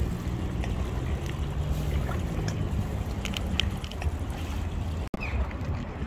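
Waterside ambience: a steady low rumble with a faint hum, and a few short high calls from waterbirds about three and a half seconds in. The sound drops out for an instant near the end.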